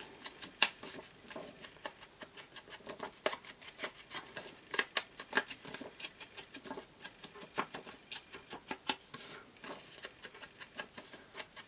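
Small ink dauber dabbed repeatedly along the edges of a sheet of paper to ink them, giving light irregular taps several times a second, with a sharper tap about half a second in.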